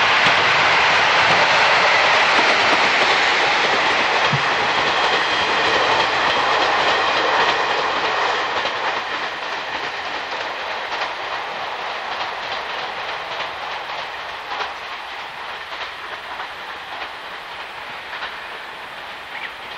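A train passing on the line, its wheels clicking over the rail joints; loudest at first, then fading steadily as it draws away.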